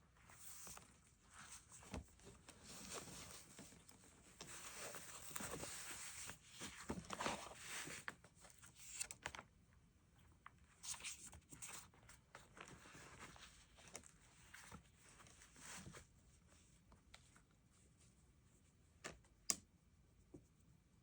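Soft rustling and scraping of paper and stationery being handled, like stickers or tape being peeled and paper being smoothed, with scattered light clicks and one sharp click near the end.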